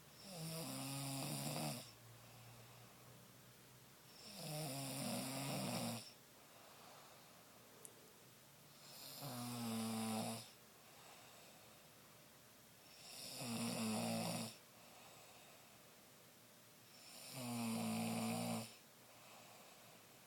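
A sleeping man snoring: five snores, about one every four seconds, each swelling over a second or so and then cutting off sharply, with quiet between them.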